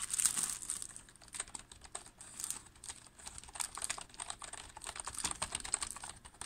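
Typing on a new computer keyboard: a fast, uneven stream of key clicks.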